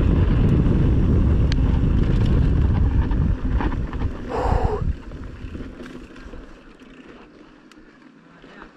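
Low rumble of a moving vehicle with wind buffeting the microphone. It dies away about five seconds in, leaving a faint hiss.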